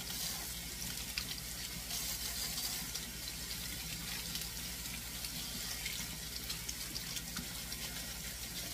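Kitchen faucet running steadily into a stainless steel sink, the stream splashing as leafy greens are rinsed by hand under it.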